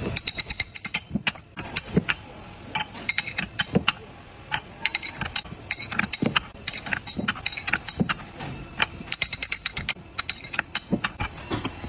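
Steel rollers of a large roller bearing clinking and tapping as they are pressed into the cage around the inner ring: many sharp, irregular metallic clicks, often in quick clusters.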